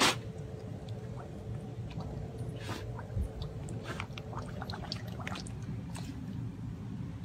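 A puppy blowing bubbles into a stainless steel bowl of water and pawing at it: a steady low bubbling with scattered small splashes and drips. A single sharp splash comes right at the start.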